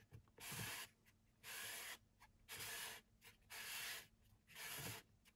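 Plastic union ring of an aquabee UP 12.000 aquarium pump being hand-screwed onto the threaded motor block: quiet, short scraping rubs about once a second as each turn slides the plastic threads and the hands over the housing.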